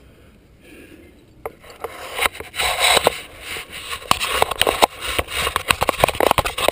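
Helmet-mounted camera scraping and knocking against the rock face as the climber moves up tight against the wall: a dense, irregular run of scrapes and sharp clicks that starts about a second and a half in.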